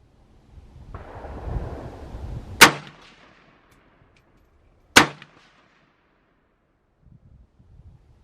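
Two single rifle shots from a PSA AK-47, about two and a half seconds apart, each cracking sharply with a short echoing tail. A second or two of rushing noise comes just before the first shot.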